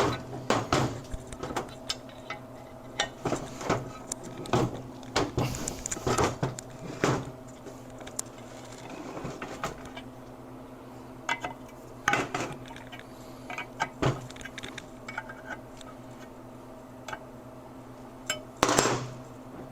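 Scattered metal clinks and knocks of a wrench working a worn fitting on a motorcycle engine case, with tools set down on the bench, over a steady low hum.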